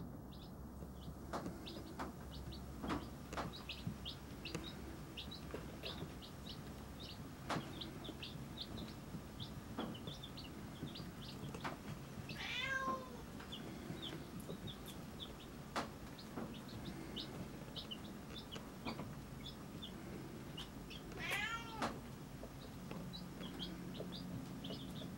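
Baby chicks peeping: many short, high cheeps throughout, and twice a longer, louder call that falls in pitch, about halfway through and near the end.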